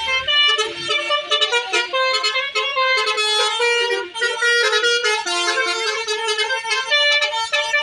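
Bus 'telolet' horn, a set of musical air horns, playing a quick tune. Several tones sound at once and step from note to note every fraction of a second without a break.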